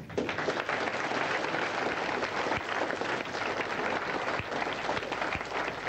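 Audience of schoolchildren applauding, a dense, steady clatter of many hands clapping.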